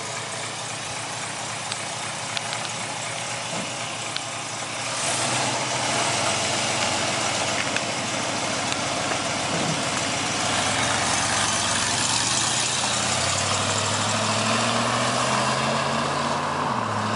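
1969 Dodge Charger's 383 big-block V8 running on the street over a steady rush of noise. Partway through, the engine note climbs slowly for several seconds, then drops suddenly near the end.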